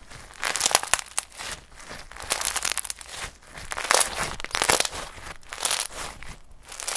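Slime being squeezed and pressed by hand, giving swells of crisp crackling about once a second.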